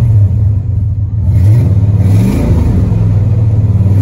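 1991 Ford F-150's 5.0L V8 running, heard from inside the cab, revved once about a second and a half in, its pitch rising and then falling back to a steady idle.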